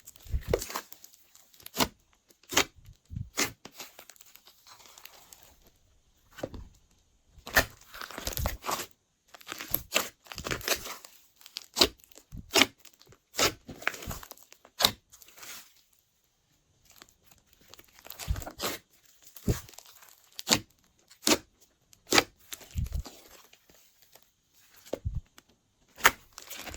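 Glossy slime being squeezed, stretched and folded by hand, giving irregular sticky clicks and crackling pops with short pauses between handfuls.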